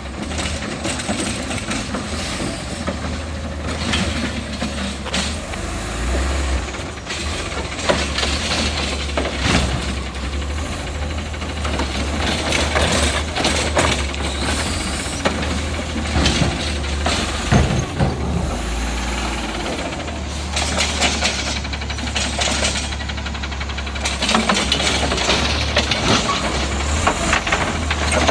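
Natural-gas engine of an Autocar garbage truck with a Heil Rapid Rail side-loader running, with intermittent clanks and knocks from the automated arm and body as it collects carts; the loudest knocks come about halfway through.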